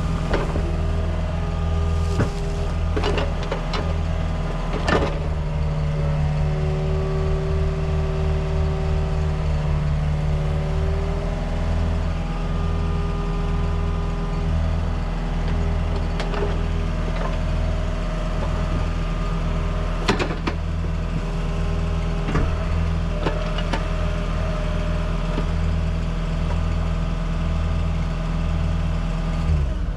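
Heavy machine's diesel engine running steadily, its pitch shifting a little partway through, with a few sharp metallic clanks.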